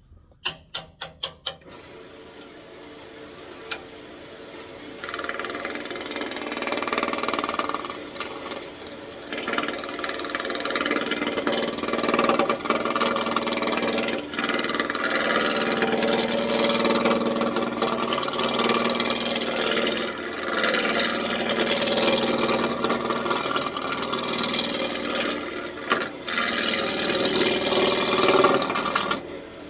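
A quick run of clicks, then a wood lathe spinning a square walnut blank while a turning tool cuts it round. The cutting is a loud, rough noise that comes in long passes with short breaks.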